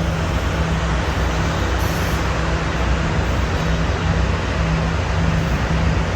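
A train's engine running steadily: a loud, even rumble with a low hum that swells and fades.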